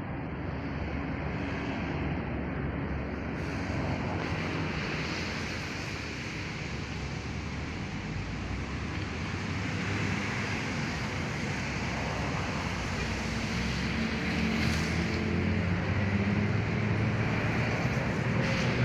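Steady outdoor rumble of motor noise and wind, with a low engine hum growing louder over the second half as a motor vehicle draws near.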